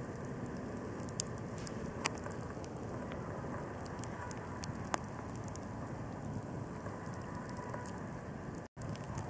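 Campfire burning: a steady hiss with a few sharp crackling pops.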